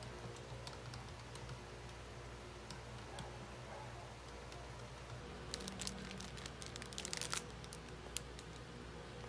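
Light typing on a compact round-key keyboard, then from about five and a half seconds in, a clear plastic sandwich bag crinkling in the hand for a couple of seconds, with one more crinkle near the end. All of it is faint.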